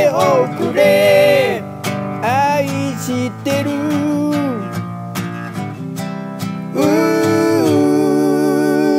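A slow ballad on acoustic guitar with a sung melody; the voice holds a long note over the strummed chords through the last two seconds.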